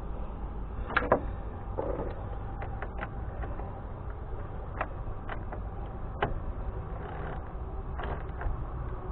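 Scattered sharp clicks and light knocks of hand tools and small wiring parts being handled during vehicle wiring work, over a steady low rumble.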